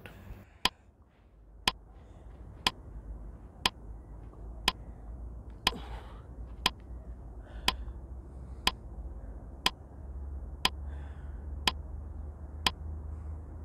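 A 15-second rest-countdown timer sound effect ticking steadily, one sharp click a second.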